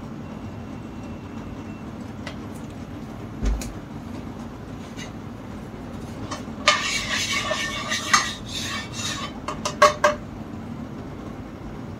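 Cooking pot and utensils clattering: a dull knock about three and a half seconds in, then scraping with several sharp clinks from about seven to ten seconds in, over a steady low hum.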